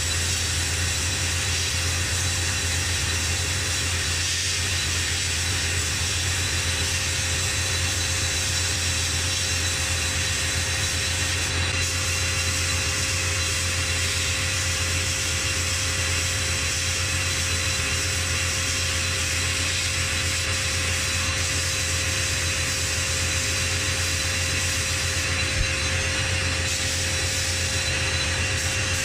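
A workshop machine running steadily with a constant low hum and hiss, unchanging throughout.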